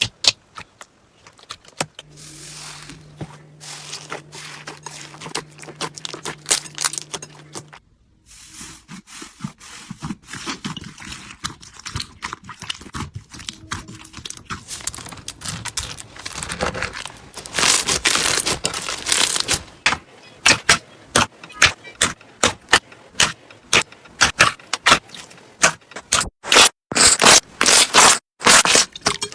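Slime being squeezed, pressed and poked by hand, making rapid crackling, popping and crunching clicks in several short clips. A low steady hum runs under one clip in the first few seconds, and the crunching is densest past the middle.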